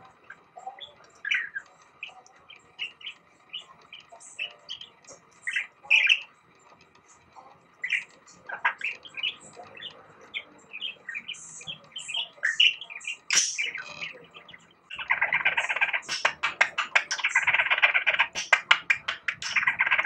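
Budgerigar giving short chirps and whistles, including its self-taught imitation of a light-vented bulbul's call. About three-quarters of the way in it breaks into a loud, fast chattering warble.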